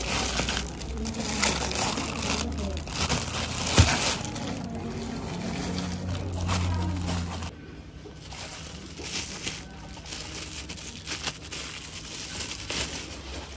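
Clear plastic wrapping around new sandals crinkling and rustling as it is handled, with one sharp knock about four seconds in.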